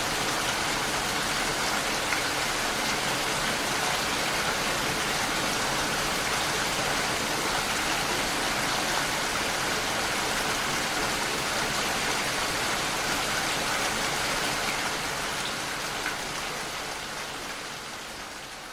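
Steady rain pattering against a window pane, fading out gradually over the last few seconds.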